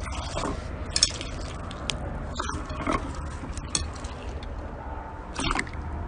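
Slime being squished and worked, with wet squishing and several sharp crackling pops over a steady low hum.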